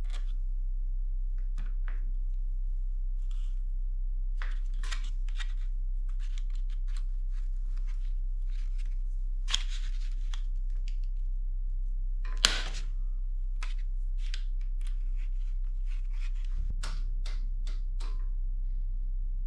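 Irregular light clicks and taps of small bicycle brake parts and tools being handled, with one sharper click about twelve seconds in, over a steady low electrical hum.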